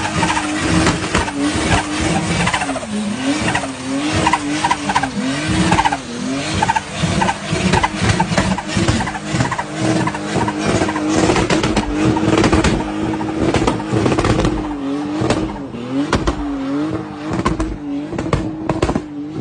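A car sliding or doing a burnout, its tires squealing with a pitch that wavers up and down, over engine noise and sharp crackles.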